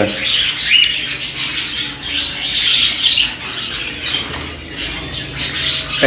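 Cockatiel screeching over and over and flapping its wings as it struggles against being caught by hand in a wire cage.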